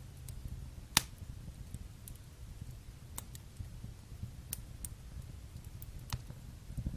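Fire burning in a fireplace, crackling: a steady low rumble of flame with scattered sharp pops, the loudest about a second in.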